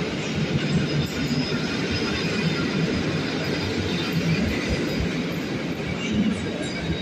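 PKP Intercity passenger coaches rolling past, their wheels rumbling and clicking steadily on the rails, with a faint high wheel squeal.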